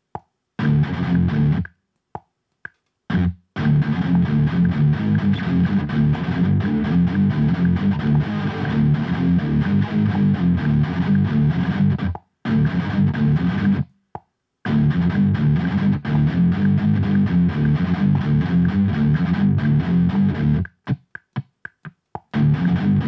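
Heavily distorted electric guitar playing rhythmic riffs in the low register. The sound stops dead several times between phrases and cuts in and out in a quick stuttering run near the end.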